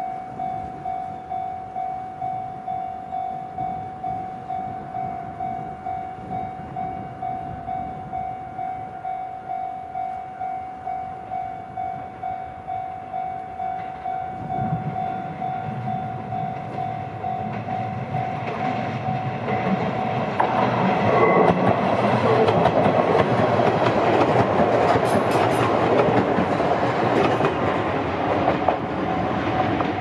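Level-crossing warning bell dinging steadily, about twice a second. From about halfway an electric train is heard approaching with a rising rumble, then passes over the crossing, its wheels running loudly on the rails and drowning out the bell for the last third.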